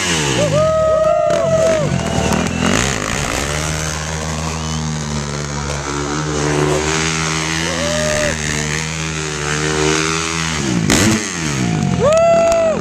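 KTM dirt bike engine revving. There are sharp rev blips about half a second in and again near the end. Through the middle the engine holds one steady pitch for several seconds.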